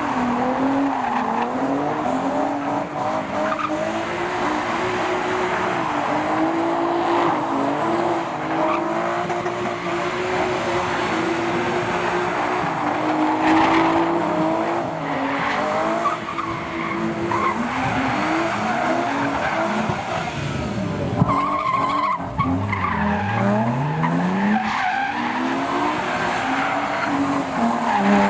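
A drifting car: the engine revs hard, its pitch rising and falling as the throttle is worked, over the screech of sliding, spinning tyres. About two-thirds of the way through the revs drop right down, then climb steadily again.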